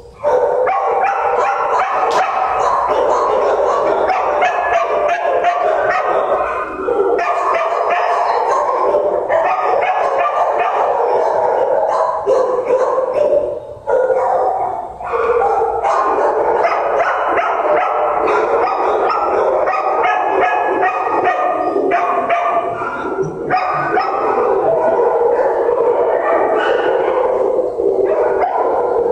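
Many kennel dogs barking and yipping at once, overlapping into a continuous din with only a brief lull about fourteen seconds in.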